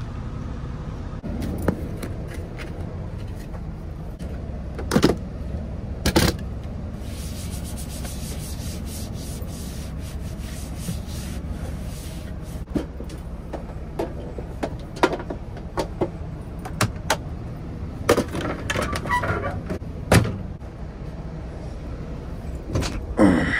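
Clean-up and handling noises in a truck's sleeper cab: a paper napkin wiping a surface, rustling, and scattered knocks and clicks over a steady low hum. The knocks are loudest about five, six and twenty seconds in.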